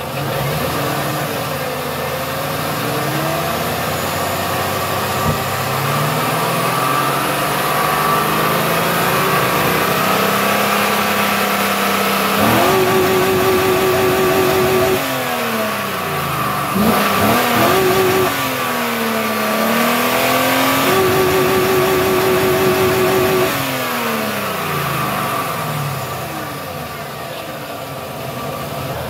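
GM 5.3-litre V8 being revved repeatedly, its pitch rising and falling. Three times it climbs to the same flat ceiling and holds there, bouncing off the rev limiter, twice for a couple of seconds and once briefly.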